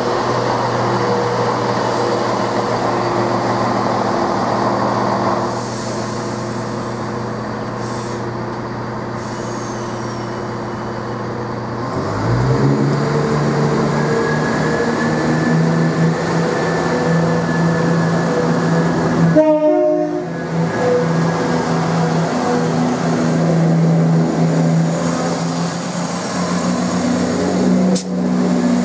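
Class 170 Turbostar diesel multiple unit's underfloor diesel engines running steadily. About halfway through, the engine note steps up and stays higher as the train pulls away under power. A brief train horn sounds about two-thirds of the way in.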